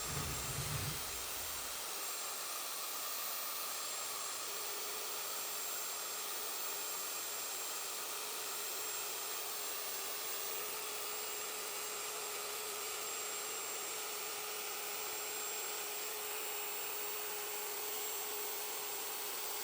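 Electric router with a fine CNC bit running steadily at high speed, cutting an outline into glued-up pallet wood, a constant whine over a hiss.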